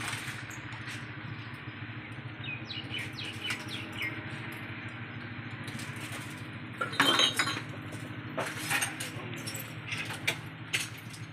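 Broken glass shards, drink cans and bottles clinking and clattering as they are gathered up off the ground, from the smashed glass doors of drink coolers. The clinks come singly and in small clusters over a steady low hum, with the loudest clatter about seven seconds in.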